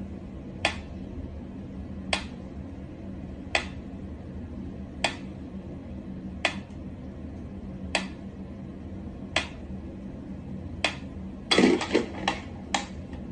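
Sharp, light clinks or taps, evenly spaced about one and a half seconds apart over a low steady hum; near the end several come in quick succession.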